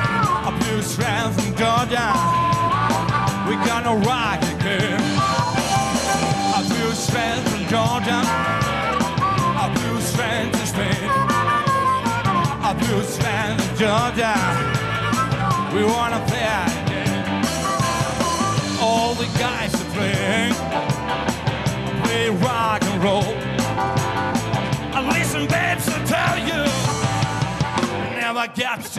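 Live blues-rock band playing: electric guitar, electric bass and drums over a steady beat, with a lead line full of pitch bends. The low end drops out briefly near the end.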